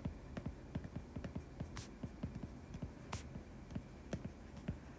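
Stylus writing on a tablet's glass screen: a string of light, irregular taps and ticks, with a few sharper clicks.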